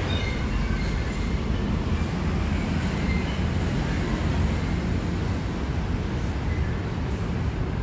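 Steady low rumble of traffic on the elevated road overhead, heard from underneath the flyover.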